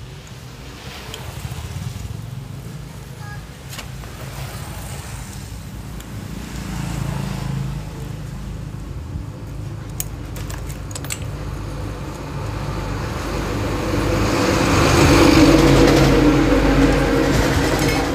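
Steady low engine hum of passing road traffic, swelling to its loudest about three-quarters of the way through, with a few sharp metallic clicks near the middle.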